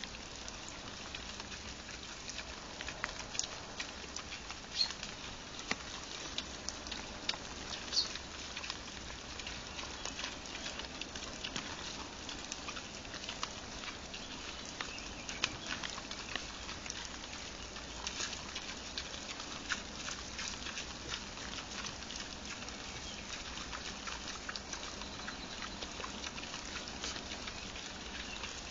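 Wild boar crunching maize kernels: irregular sharp cracks and clicks over a steady background hiss.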